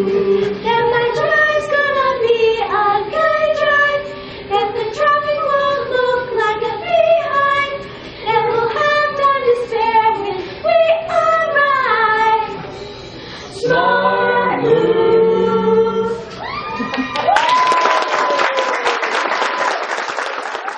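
A group of children singing a song together with no instruments. About three-quarters of the way through, the singing stops and applause breaks out.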